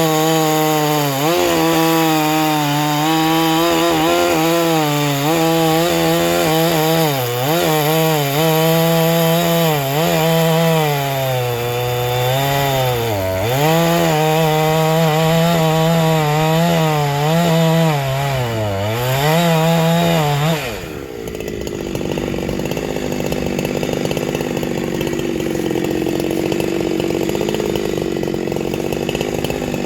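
Ported 372XP-clone two-stroke chainsaw running at high revs, its pitch wavering and dipping several times. About two-thirds of the way through the pitch drops suddenly to a lower, rougher steady sound.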